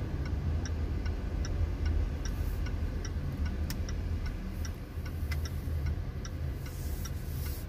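Range Rover Velar's turn-signal indicator ticking steadily, a little over two clicks a second, over the low hum of the car's 2-litre engine and road noise inside the cabin.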